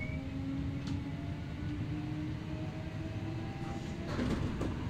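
Kintetsu 8000 series electric train running at speed, heard from inside a motor car: its field-phase-controlled DC traction motors and gears give a steady whine that edges slightly up in pitch over the wheel rumble. About four seconds in, a short burst of rattling track noise rises over it.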